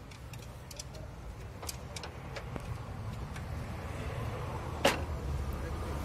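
Scattered light clicks and one sharper knock about five seconds in, from hands working on a car's carburetor and intake parts, over a low steady rumble.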